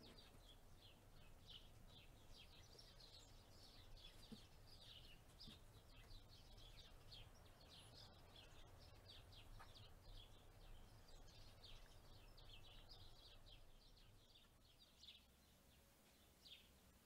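Faint chorus of small birds chirping in quick, overlapping short notes, thinning out near the end, over a low rumble of wind.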